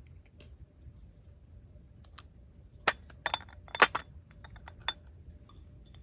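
Small glass spice jars clinking as they are set down and picked up on a metal tray: a few short, sharp clinks and taps, loudest in the middle.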